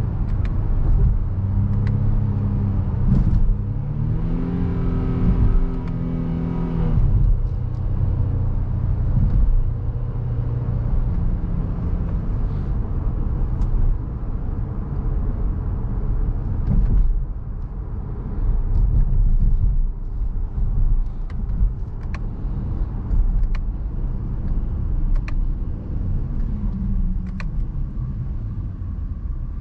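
Cabin sound of a 2020 Honda Pilot's 3.5-litre V6 and road noise while driving and slowing down. The engine's tone rises and falls a few seconds in and again near the end.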